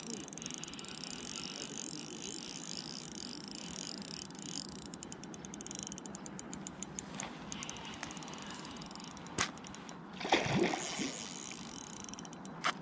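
Spinning reel's drag clicking in rapid runs as a hooked trout takes line, with a brief louder splash about ten seconds in.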